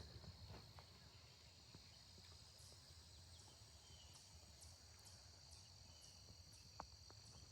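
Near silence: faint outdoor ambience, with a steady high hum and faint ticks about two a second.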